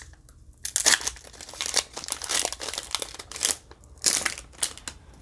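Foil wrapper of a Pokémon card booster pack crinkling and tearing as it is ripped open, in irregular crackly bursts starting about a second in.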